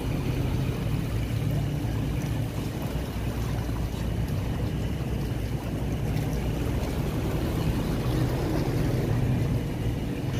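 Boat engine running steadily, a low drone under a constant hiss of water or rain.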